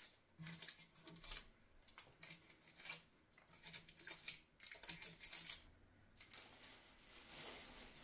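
Kitchen knife chopping an onion on a cutting board: faint, irregular taps of the blade hitting the board.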